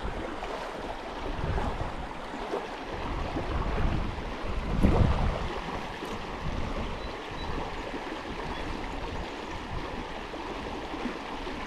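Trout stream water running, an even rush and burble, with a brief low rumble about five seconds in.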